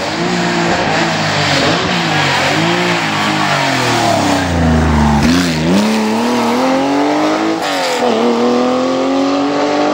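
Classic Porsche 911 rally car's flat-six engine at racing revs, its pitch climbing and dropping again and again with the gear changes as it passes close. About five seconds in the revs fall low and then climb steadily.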